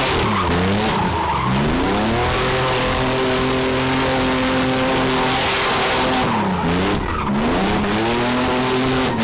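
Car engine held at high revs while its rear tyres spin and screech through a drift or donut. The revs drop and climb back twice, once in the first couple of seconds and again about six and a half seconds in.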